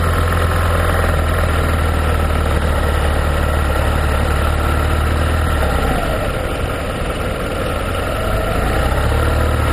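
Motor scooter riding in highway traffic: a steady low engine drone under wind and road noise, easing off a little about six seconds in and building again near the end.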